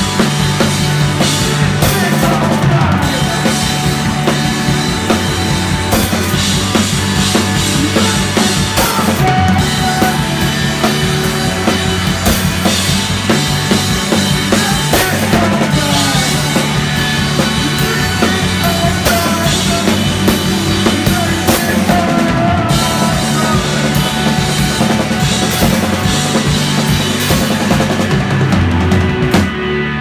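A rock band playing loud live in a rehearsal room: a drum kit with bass drum, snare and cymbals, together with electric guitars. Shortly before the end the drumming stops, and the guitars keep ringing.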